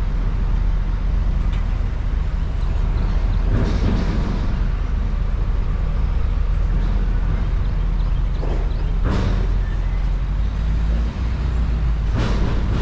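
Vehicle engine running steadily with a low drone, and three brief whooshes about 4, 9 and 12 seconds in.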